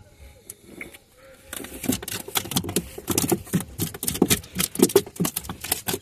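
A quick, irregular run of sharp knocks and slaps, beginning about a second and a half in, some with a dull thud behind them.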